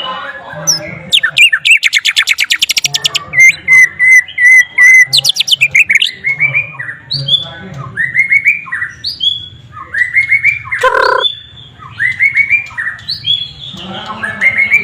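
White-rumped shama (murai batu) singing a song filled with sikatan londo flycatcher phrases. It opens with a fast rattling trill, then a run of repeated whistled notes, then series of short rising chirps. A harsher, lower squawk comes near the middle of the song.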